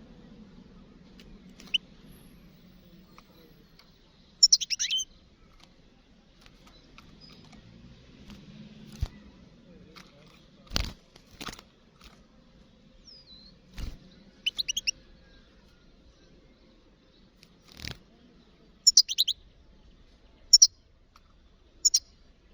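European goldfinch giving short, high twittering calls at intervals of a few seconds, with several sharp knocks in between.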